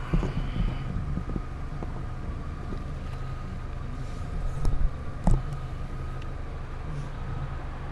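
Steady low rumble throughout with a faint steady whine. A few knocks and bumps from the camera being handled come near the start and again around the middle, the loudest just past the middle.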